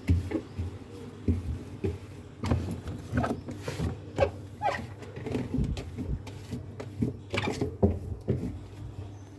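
Dry cloth rubbing over the plastic inside of a refrigerator, giving short squeaks, with irregular knocks and clicks of handling against the fridge walls and shelves.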